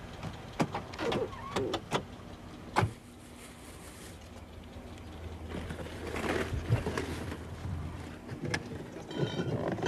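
A car's door and boot latch clicking and knocking several times in quick succession as the boot lid is opened, over a low steady hum. Then rustling and a few knocks as cardboard boxes and sacks in the boot are handled.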